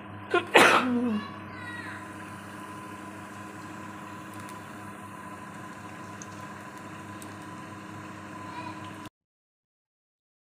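Lauki kofte batter frying in hot oil: a steady sizzle over a steady hum. About half a second in there is a brief loud vocal sound, and the sound cuts off abruptly about a second before the end.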